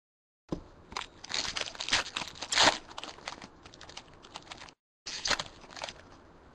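Foil trading-card pack wrapper being torn open and crinkled by hand: a dense run of sharp crackling tears, loudest about two and a half seconds in. The sound cuts out completely twice, briefly, at the start and just before five seconds in.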